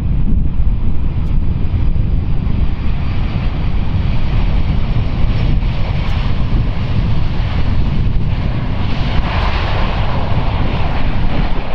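Jet noise from a Boeing 747-400's four GE CF6-80C2 turbofans, growing louder in the last few seconds, under heavy wind rumble on the microphone.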